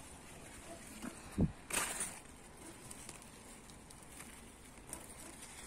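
Faint rustling of cucumber leaves and vines being handled, with a low thump about a second and a half in followed by a short rustle, and a few small clicks near the end.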